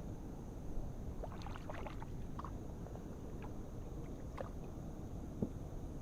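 Scattered small clicks and knocks of fishing gear being handled in a kayak, over a steady low rumble.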